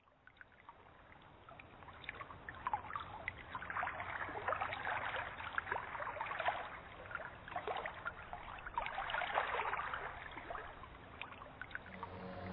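Running water trickling and splashing, fading in from silence over the first few seconds.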